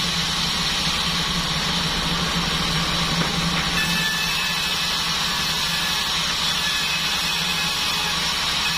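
Band sawmill machine running with a steady, even drone, and faint high whines joining about four seconds in.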